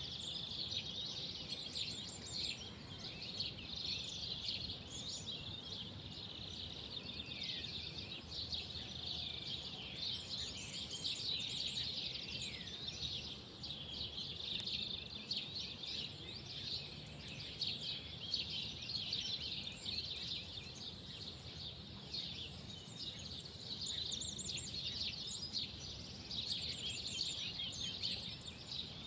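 Many small birds chirping and twittering together in a continuous dense chorus of short high chirps and quick falling notes, over a faint low rumble.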